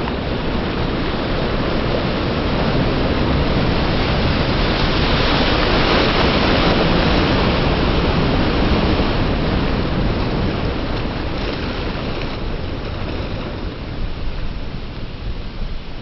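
Small ocean waves breaking and washing up the beach in a steady rush of surf. It swells to its loudest near the middle as a wave's whitewater washes right up to the microphone, then eases off in the last few seconds.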